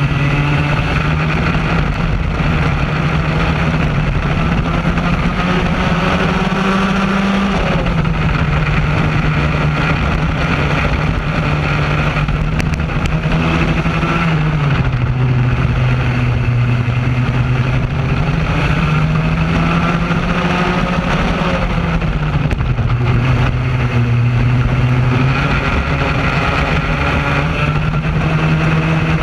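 Raket two-stroke kart engine running at racing speed, heard close up from onboard. Its pitch holds high along the straights and drops sharply three times as the driver lifts off for corners, then climbs again.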